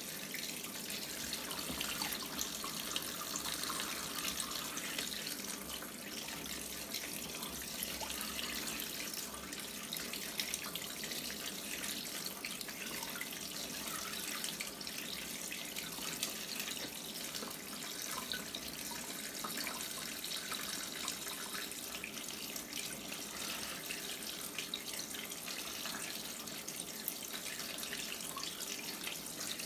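Water running steadily from a hose into the spin drum of a Costway mini twin-tub washing machine. The drum is turned by hand to spread the rinse water and fabric softener through the load.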